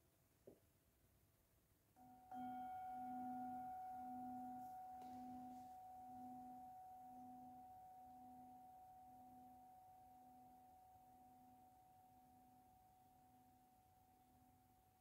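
Metal singing bowl struck once about two seconds in and left to ring: a clear tone with a lower hum that pulses in slow, even waves as it slowly fades.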